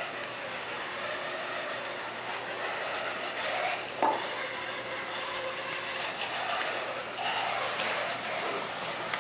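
Small wheeled soccer robots' drive motors whirring as they move over the carpet, with a sharp knock about four seconds in.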